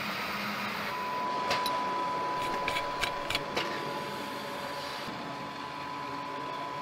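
Assembly-plant floor ambience: a steady hiss, with a continuous high-pitched tone that comes on about a second in and holds. A handful of sharp clicks fall around the middle.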